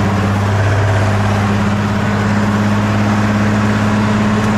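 Diesel truck engine running at a steady raised fast idle, warming up just after a cold start at −22°F.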